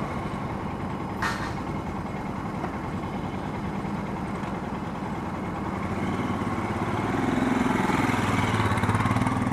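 Royal Enfield Himalayan's 411 cc single-cylinder engine idling steadily, growing louder a few seconds from the end as the bike rolls up close alongside.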